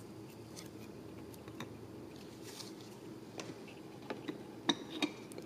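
Faint handling noise of trading cards being handled: scattered light clicks and taps, with two sharper clicks near the end.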